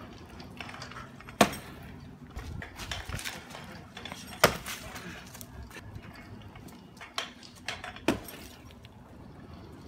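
Stunt scooter clattering on brick paving: several sharp metallic knocks from the deck and wheels striking the ground, the loudest about four and a half seconds in as the rider lands a jump.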